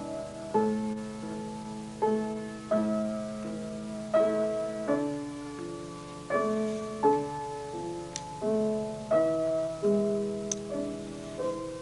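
Piano music: slow chords, each struck and left to ring and fade, with a new chord roughly every second.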